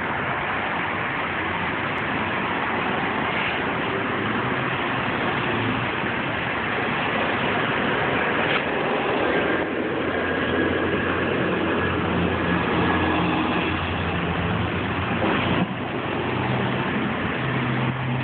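Steady motor-vehicle noise: a low engine hum under a constant hiss of road traffic.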